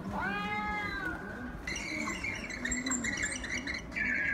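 A recorded cat meowing once, a long call that rises and falls, played through a tablet's speaker. About halfway through, a different high, rapidly repeating chirping animal call takes over.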